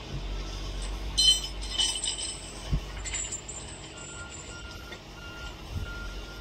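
Track crew's steel tools clinking against rail, two short ringing metallic strikes about a second in, over a steady low rumble of machinery. A faint repeated beeping, a work vehicle's reversing alarm, starts about four seconds in.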